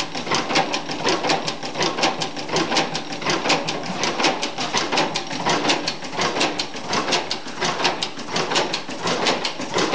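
1903 40 hp Union stationary gas engine running, with a fast, even clatter of mechanical clicks.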